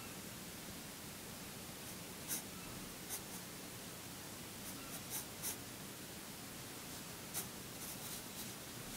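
Graphite pencil sketching lightly on paper: short, faint scratches of the lead, a handful of separate strokes starting about two seconds in.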